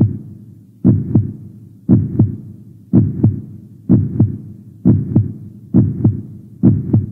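Heartbeat sound effect: a deep double thump, lub-dub, repeating about once a second and quickening slightly toward the end.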